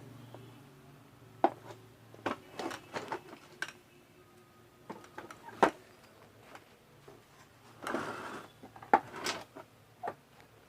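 Scattered clicks and knocks of a plastic vacuum-cleaner housing and a screwdriver being handled while the housing screws are fitted, with a short rustling scrape about eight seconds in.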